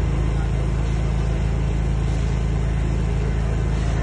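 Ultra-compact soundproof petrol generator set running steadily, its engine note even and unchanging.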